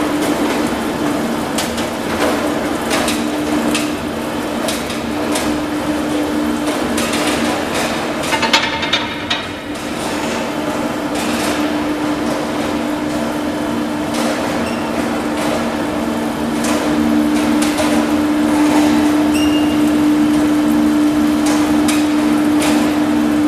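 MIC 80 bar straightening machine running with a steel bar passing through it: a steady machine hum with frequent metallic knocks and rattles.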